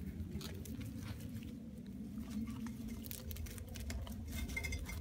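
A clump of cut lavender stalks rustling and crackling as it is handled, with scattered small clicks, over a low steady hum.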